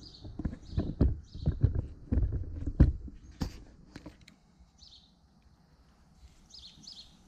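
Metal clicks and knocks of a hand flaring tool being fitted and worked on copper propane tubing, a quick irregular clatter for about four seconds that then stops.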